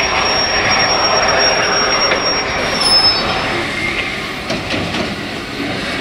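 Wheels of the steam train hauled by 7029 'Clun Castle' squealing in one steady high tone over the rumble of the train rolling slowly. About halfway through the squeal drops in pitch and stops, leaving a quieter rumble with a few sharp knocks.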